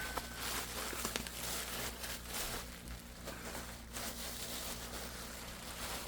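Bubble-wrap packaging rustling and crinkling in uneven handling as a replacement laptop screen is unwrapped by hand, with a low steady hum underneath.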